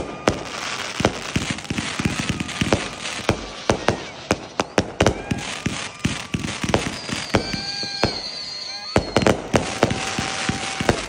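Fireworks launched from the ground in rapid succession: a dense run of sharp bangs and launch thumps over steady crackling, with a few thin whistling tones between shots.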